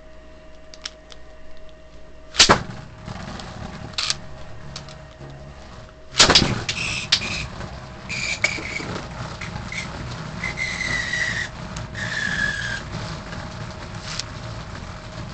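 Metal-wheeled Beyblade spinning tops in a plastic stadium. Two loud sharp clacks come, the second about six seconds in, followed by a steady whirring rattle with repeated clacks as the tops hit each other and the stadium wall. Short high scraping squeals are heard several times.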